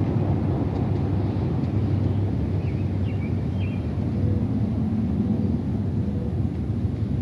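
Steady low outdoor rumble, with a small bird giving a few short chirps about three seconds in.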